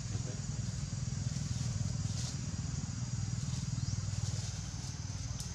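A steady low engine hum with a faint high hiss, and a few soft clicks over it.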